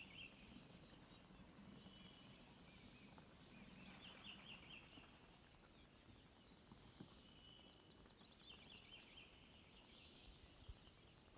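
Faint songbird song over a quiet background: short trilled phrases of quick high notes, each followed by a brief whistled note, repeating every three to four seconds.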